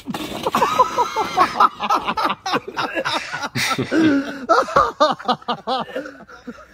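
A man gagging and coughing after gulping beer spiked with shaving cream, with laughter; a quick run of short ha-ha laughs comes near the end.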